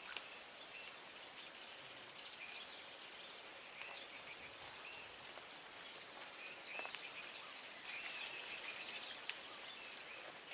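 Rural outdoor ambience: faint bird chirps and insect calls over a steady background, with scattered small clicks. A sharp click about nine seconds in is the loudest sound.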